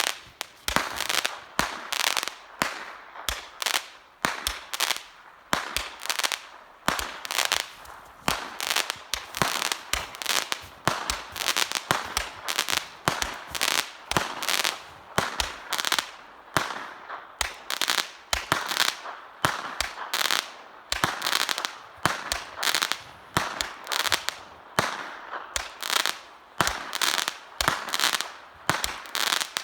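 A fused fireworks show firing as a continuous barrage: sharp bangs from launches and bursts, several a second, with crackling between them.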